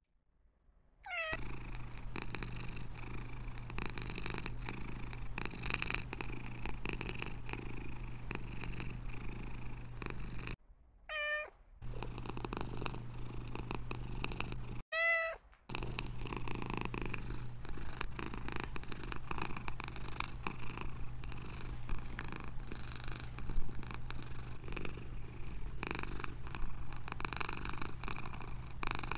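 Domestic cat purring steadily, broken by short meows about a second in, about 11 seconds in and about 15 seconds in.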